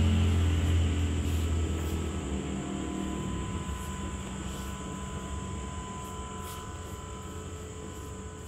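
Low engine rumble fading away over several seconds, with a steady high-pitched whine running underneath.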